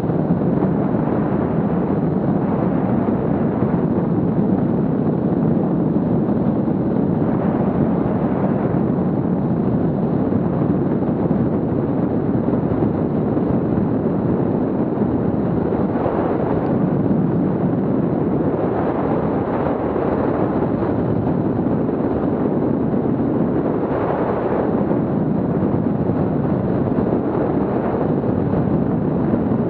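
Paramotor in flight: a loud, steady rumble of wind buffeting the action camera's microphone together with the paramotor engine and propeller, swelling slightly now and then.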